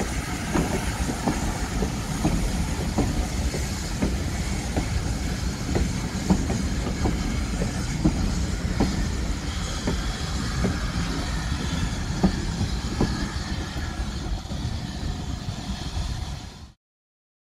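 Heritage passenger coaches rolling past over pointwork, their wheels clicking over rail joints in a steady clickety-clack about every two-thirds of a second above a low rumble. The sound cuts off suddenly near the end.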